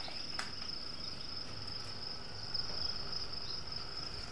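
Crickets chirring steadily at a high pitch, with a single faint click about half a second in.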